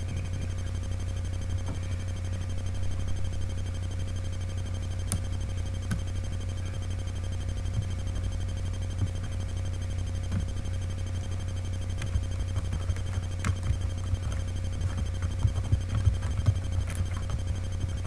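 Steady low electrical hum with a thin higher tone held throughout, and a few faint clicks, more of them near the end.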